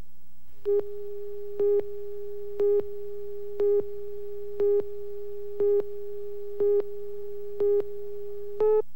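Countdown-slate tone for a broadcast tape: a steady mid-pitched tone with a louder beep on it once a second, nine beeps in all, the last one slightly higher, counting down to the start of the spot.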